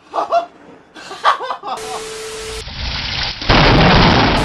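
Heavy rain hiss, then a sudden loud thunderclap from a close lightning strike about three and a half seconds in.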